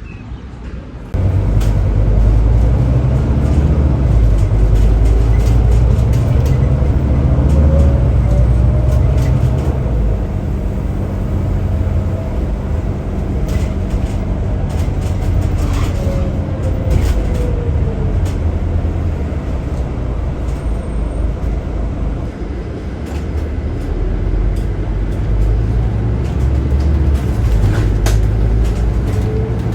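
Scania DC09 five-cylinder diesel engine of a Scania Citywide articulated bus under load, a heavy low rumble that comes in suddenly about a second in. Its pitch climbs as the bus accelerates, falls away around the middle as it eases off, then climbs again near the end, with scattered rattles and clicks.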